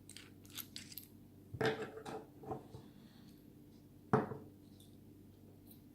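Small metal clicks and taps from handling an Abus 72/40 brass padlock and tools while taking it apart, with two sharper knocks, about one and a half and four seconds in, the second the loudest. A steady low hum sits underneath.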